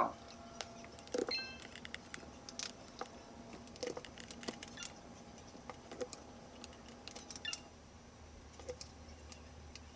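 Faint scattered clicks and handling noise as a USB connector is pulled out of an FrSky X20S radio transmitter, with a brief faint tone a little over a second in.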